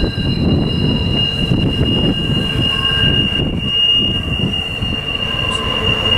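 Freight train's intermodal cars rolling past, their wheels squealing in a steady high tone over a low rumble.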